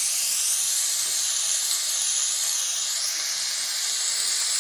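Chopped tomato, garlic, onion and capsicum sizzling steadily as they fry in oil in a wok.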